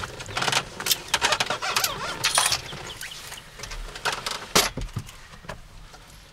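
A quick, irregular series of sharp clicks, knocks and a jingling metallic rattle, busiest in the first half and thinning out near the end: fishing tackle and a freshly caught fish being handled in a boat.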